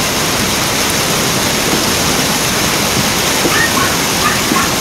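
Muddy floodwater rushing down a street as a fast torrent: a loud, steady rush of water.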